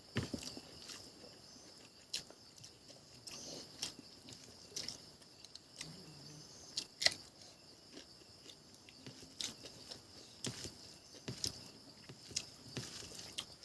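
Close-miked eating: chewing and biting, with scattered sharp clicks and small crunches, over a faint steady high-pitched tone in the background.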